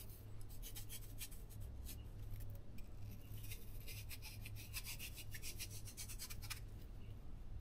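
Faint, irregular short scraping strokes: the flesh of a piece of hard-rinded winter squash being carved and scraped out by hand to make a pocket for stuffing.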